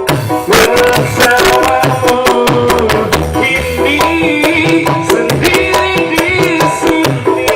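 A pop band playing an instrumental passage with no vocals: drums keep a steady beat under held instrument notes, and a higher lead melody comes in about three and a half seconds in.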